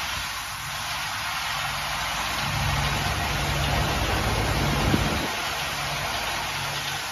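Automated cork cap assembly machine running: a steady hiss with a low hum that comes and goes, and a single sharp click about five seconds in.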